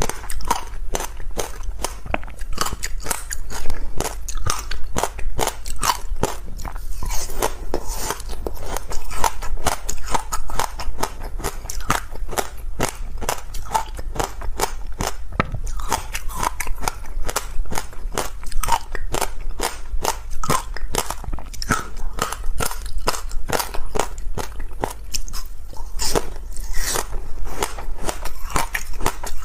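Close-miked chewing of crunchy ice: a dense, unbroken run of crisp crunches and cracks, several a second.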